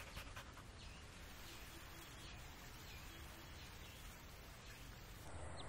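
Near silence: faint background ambience with a few soft, short, high chirps. Slightly louder ambience comes in near the end.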